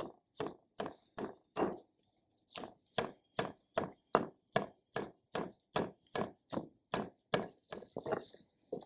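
Pestle knocking in a stone kalvam mortar in a steady rhythm, about two to three strokes a second with a short pause about two seconds in, crushing fresh Malabar nut (addasarapu) leaves for an herbal remedy.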